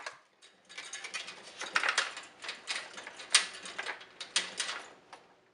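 Scratching and small irregular clicks as the defrost sensor's wire is pulled up between the aluminium evaporator coils and fins of a refrigerator/freezer. The sound starts just under a second in and dies away near the end.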